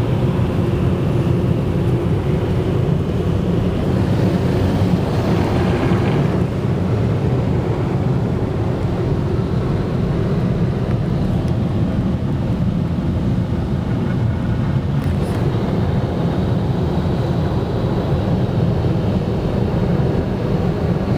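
Automatic car wash drying blowers blasting air over the car, heard from inside the cabin as a loud, steady rush of air.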